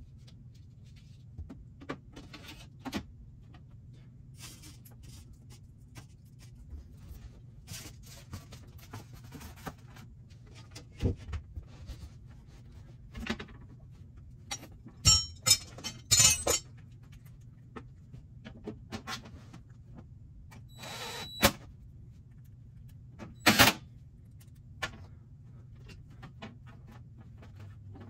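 Handling noises from refitting the sheet-metal front panel on an Aprilaire E100 dehumidifier cabinet: scattered clicks and knocks, a burst of loud metallic rattling about halfway through, then a brief whirr of a cordless driver and a sharp knock shortly after.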